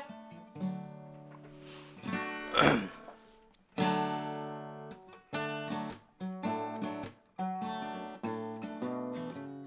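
Acoustic guitar strummed and picked, chords struck roughly once a second and left to ring, picked up by a condenser microphone. A brief louder sound with a gliding pitch stands out near three seconds in.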